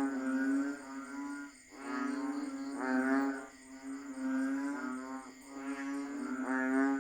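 Chorus of banded bullfrogs (Kaloula pulchra): many low, droning, moo-like calls overlapping, swelling and fading every second or so.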